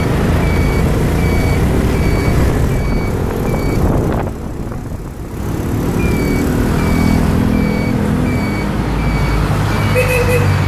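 Motorcycle engine running while riding in traffic, with wind and road noise on the microphone. A short electronic beep repeats about three times every two seconds, stopping for a second or two in the middle when the engine note drops, then resuming.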